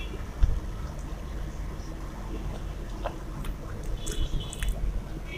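Eating by hand: fingers mixing rice with fish curry on a steel plate, and chewing, with a few small clicks near the middle and end.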